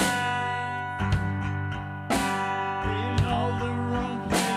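Background music: a few strummed guitar chords, each left ringing.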